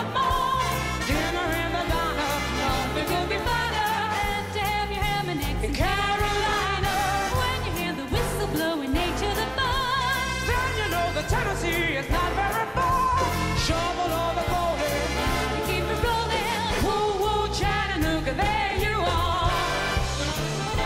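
Background music: a song with a singing voice over a steady beat.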